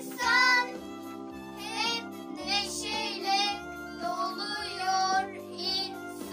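A children's song: a child's voice singing over instrumental accompaniment with a steady, repeating bass line.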